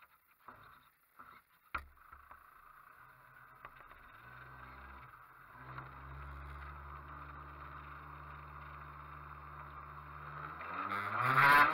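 A radio-controlled model boat's motor hums steadily and slowly grows louder. About a second before the end it revs up with a rising whine. A few light knocks come early, the sharpest just under two seconds in.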